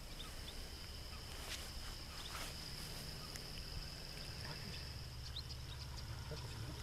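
Insects, crickets by the sound of it, trilling steadily in one high continuous tone over a low steady hum, with a few faint ticks.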